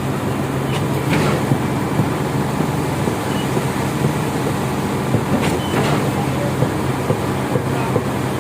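Heavy diesel engine of the concrete-pouring equipment running steadily, with a few sharp knocks about a second in and again around five and a half seconds.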